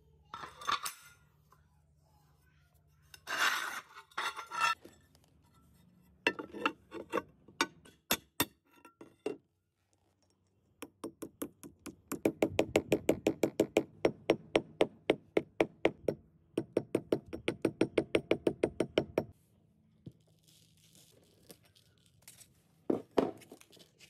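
A hammer tapping a shard of ceramic tile on a cast-iron disc, crushing it into fragments. A long run of fast, even taps, about five or six a second, with a short break midway. Before it come scattered knocks and clinks, and near the end a faint scraping and a couple more knocks.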